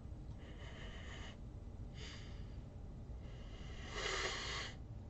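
A man with a head cold sniffing through his nose at an open soda bottle, three sniffs, the last one the loudest; his nose is stuffed up and he can't smell the drink.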